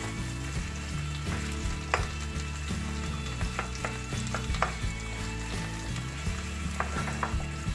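Sliced carrots and onion sizzling in a wok as they are stir-fried with a wooden spatula, with the spatula knocking and scraping against the pan now and then.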